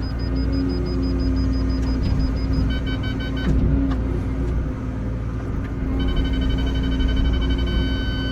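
Excavator's diesel engine running with a steady low rumble and hum. High electronic beeping sounds over it: rapid short beeps in the first few seconds, then a steadier multi-tone beep near the end.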